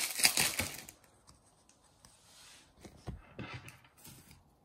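Wrapper of a rack pack of trading cards crinkling as it is torn open, for about the first second. Then faint rustles and soft taps of the cards being handled.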